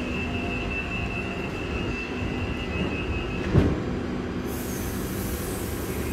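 Electric commuter railcar standing at the platform, its equipment humming, with a high steady tone that stops just before a single thump about three and a half seconds in as its doors shut. A hiss starts about a second later.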